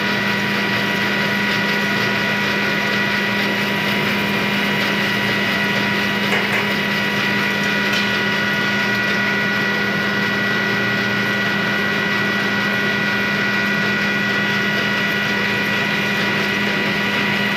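Rice mill machinery running steadily: a loud, even mechanical din with a low hum and several constant high whining tones.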